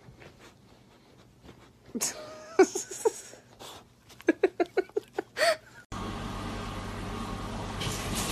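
Short pitched vocal sounds that bend up and down, with a quick run of about six in a row near the middle. Then a steady hiss starts abruptly.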